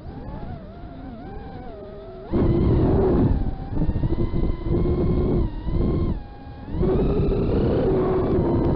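FPV racing quadcopter's brushless motors and propellers whining, pitch wandering up and down at low throttle, then punched to high throttle a couple of seconds in with a loud, noisy rush of air. The throttle eases off briefly past the middle and comes back up for the rest.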